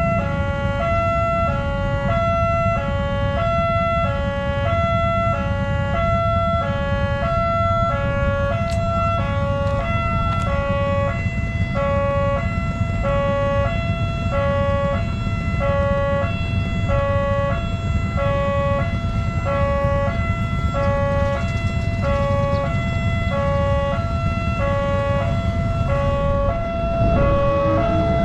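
Railway level-crossing warning siren sounding a steady two-tone alternating wail, the alarm that a train is approaching the crossing.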